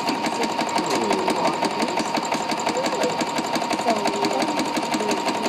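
Singer sewing machine running steadily at speed, free-motion stitching a zigzag with an embroidery/quilting foot as the fabric is moved by hand: a fast, even clatter of needle strokes over a steady motor whine.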